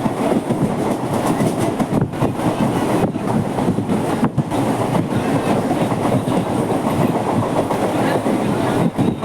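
Mumbai suburban local electric train running along the track, its wheels clattering steadily on the rails.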